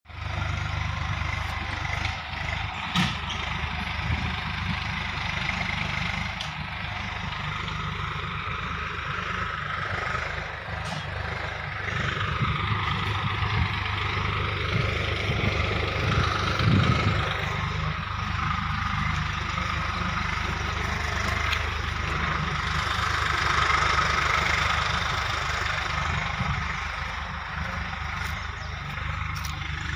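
Compact tractor's engine running steadily while plowing, a constant low hum that rises and falls slightly.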